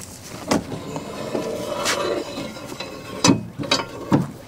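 Metal clicks and knocks from handling the body panels and fittings of a John Deere 60G excavator: a knock, then a drawn-out grating sound, then three sharp clicks close together near the end.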